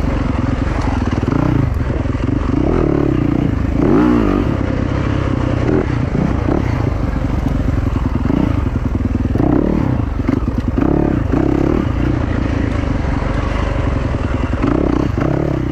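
Yamaha WR450F's single-cylinder four-stroke engine being ridden hard off-road, its pitch rising and falling repeatedly as the throttle opens and closes, with some rattling from the bike.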